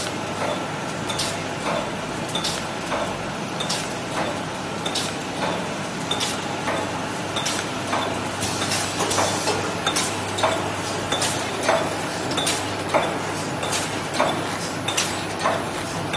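Paper plate making machine running, its press striking with a sharp click about every 1.2 seconds over a steady hum. From about halfway, extra clicks fall between the strokes and the rhythm gets busier and louder.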